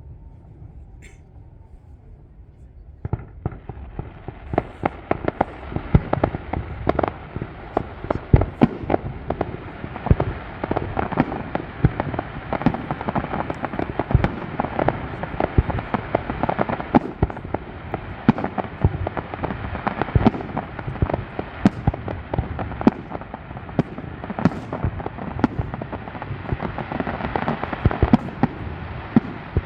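Fireworks display: after about three quiet seconds, a dense barrage of shells bursting in rapid succession, with many sharp bangs overlapping.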